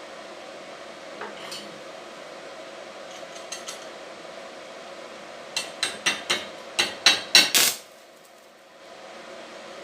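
Metal knocking and clinking in a workshop: a couple of light clicks, then a quick run of about eight sharp metallic knocks over about two seconds, growing louder, over a steady background hum that drops out briefly just after.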